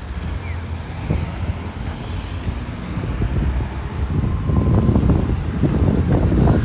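City street traffic rumble, with wind buffeting the microphone and growing louder in the second half.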